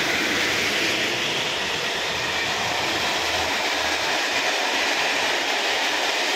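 Container wagons of a freight train passing at speed: a steady noise of wheels running on the rails.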